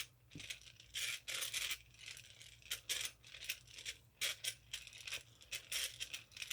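North Brothers Yankee No. 445 two-speed hand drill being cranked in its fast gear: the gears whir and chatter in a string of short, uneven bursts.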